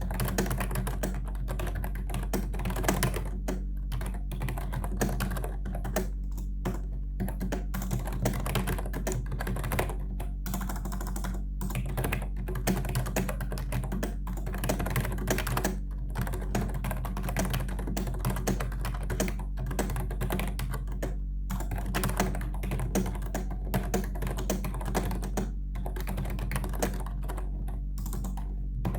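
Fast continuous typing on a Logitech K120 membrane keyboard: a dense stream of key clicks, broken by a few short pauses.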